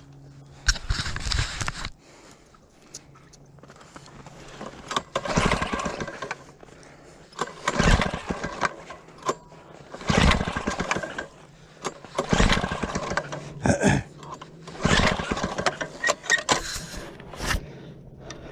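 Gas-powered ice auger engine running, with a steady idle between about seven bursts of revving, each around a second long, as it drills holes through the ice.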